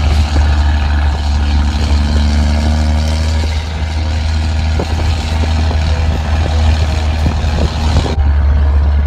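Vehicle driving along a snowy road: a steady, loud low engine and road rumble. The sound's upper range drops away suddenly about eight seconds in.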